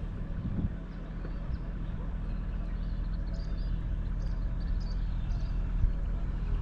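A steady low engine hum, with faint high chirps of birds.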